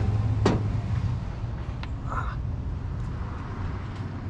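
A paint brush tapped twice against the rim of a small metal paint can, sharp clicks, then a short scrape about two seconds in. A steady low rumble runs underneath.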